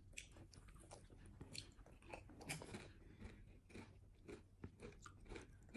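Faint crunching of someone chewing potato chips: a string of small, irregular crisp crunches.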